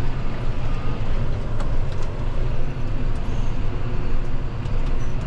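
John Deere tractor's diesel engine running steadily as the tractor drives across the field, heard from inside the cab, with faint light rattles now and then.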